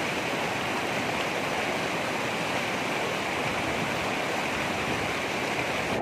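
Shallow mountain river rushing over rocks and boulders: a steady rush of white water.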